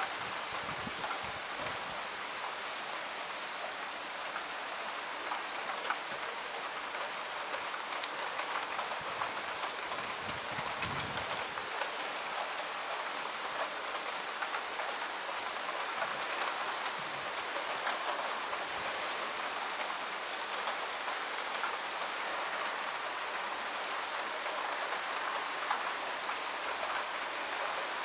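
Steady rain falling, a dense even hiss with many scattered sharp ticks of drops striking close by. A brief low rumble comes about ten seconds in.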